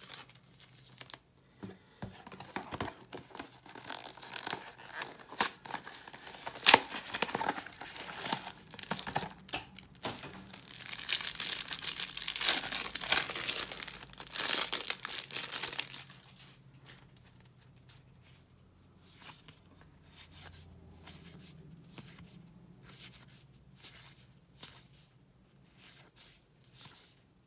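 Plastic wrapper of a trading-card pack crinkling and being torn open, loudest and most continuous for several seconds in the middle. After that, softer scattered clicks as the stack of cards is thumbed through by hand.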